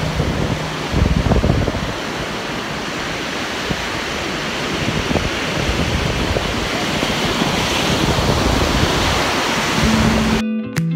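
Ocean surf breaking and washing up the beach, with wind buffeting the microphone in gusts. It cuts off suddenly near the end as guitar music begins.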